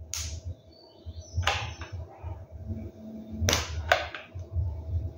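Handling noises while hot-gluing a cardboard base onto a tape-roll tube: four short, sharp clicks and scrapes from the hot glue gun and the cardboard, over low bumps of the tube being turned in the hand.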